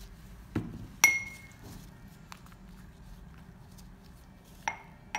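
Hard clinks and taps of bottles and caps being set down against glass. A sharp ringing clink comes about a second in and another near the end, with a dull knock and light clicks between.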